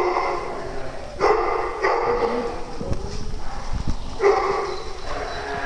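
Dogs barking during play: about five loud barks with short pauses between them, two close together just after the first second and two more after about four seconds.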